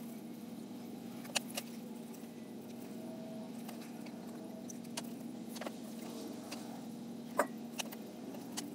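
Paracord being pulled through the wraps of a monkey fist knot, with scattered light clicks and taps as the cord and hands knock on the wooden table, over a steady low hum.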